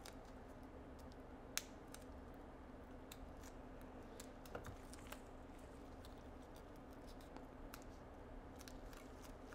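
Faint, scattered clicks and scratches of metal tweezers picking at the stickers and adhesive over an iPhone battery's BMS flex. There is one sharper click about a second and a half in, over a low steady hum.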